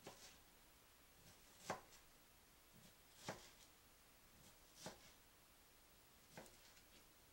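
Chef's knife slicing chicken breast into strips, its edge knocking on the plastic cutting board five times, about every second and a half, over near silence.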